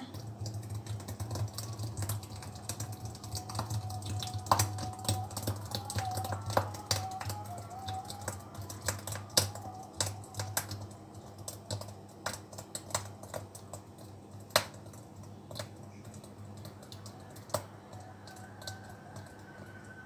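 Thick blended orange-and-lemon pulp poured from a plastic blender jar through a funnel into a large plastic water bottle: a run of small irregular clicks and plops, with a soft low rush of the pour in the first half.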